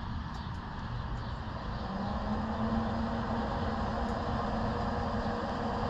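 Traeger pellet grill being started: a few faint clicks, then about two seconds in its motor comes on with a steady low hum, over a steady background rumble.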